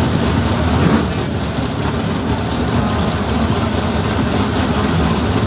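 High-powered drag race car engines running loudly at the starting line, a dense, steady low rumble.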